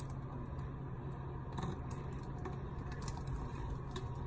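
Cooked chicken pieces tipped from a metal pot into a pan of cream sauce: a run of light clicks and knocks of metal cookware, over a steady low hum.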